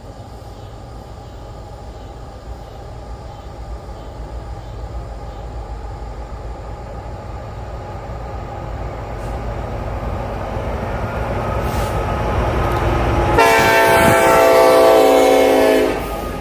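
Diesel freight locomotive approaching with a double-stack container train, its rumble growing steadily louder. Near the end it sounds one long blast of its multi-note air horn, about two and a half seconds long, which cuts off abruptly.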